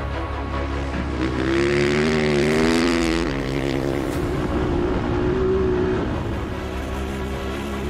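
Off-road rally motorcycle engine revving as the bike rides by. The engine note rises and falls twice, the first time for about two seconds.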